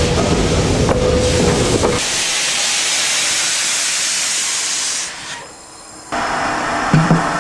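Steam locomotive venting steam: a loud, steady hiss. For the first two seconds it has a low rumble and a faint steady tone under it; after that it is high hiss alone. The hiss cuts off about five seconds in, and a different steady noise with a few knocks starts about a second later.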